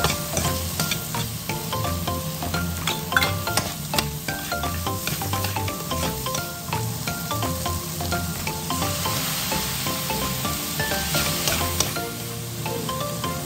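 Metal spatula scraping and clacking against a wok while minced pork, shrimp and petai stir-fry in hot oil, sizzling steadily.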